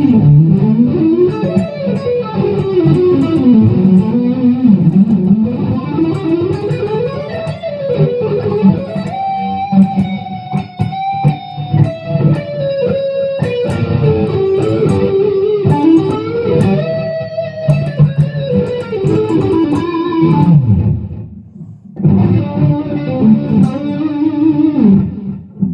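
Epiphone Les Paul Custom electric guitar with Gibson 490 humbuckers, played amplified on the neck (rhythm) pickup, thick in tone: a lead line of picked notes with string bends and slides. The playing breaks off briefly near the end, then resumes.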